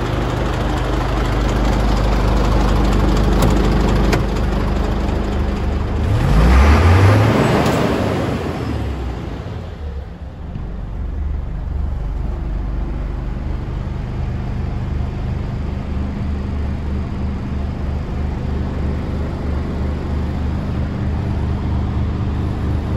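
Scania 94D 230's 9-litre five-cylinder diesel idling steadily. About six to seven seconds in, the note rises in pitch and swells briefly. From about ten seconds in it is heard duller, from inside the cab.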